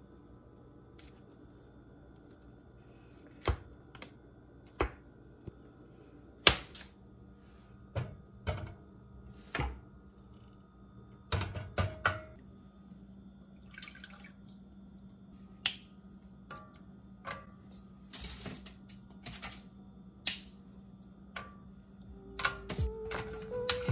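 Kitchen handling sounds: a knife cutting a block of butter on its foil wrapper and tapping the counter, then butter pieces and chocolate squares dropped into a stainless steel saucepan. These come as single sharp clicks and knocks a second or more apart. A faint steady low hum joins about a third of the way in.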